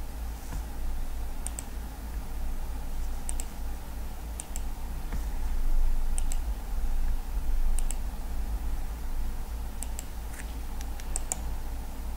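Computer mouse button clicking about eight times, each click a quick double snap of press and release, roughly a second and a half apart, over a steady low hum.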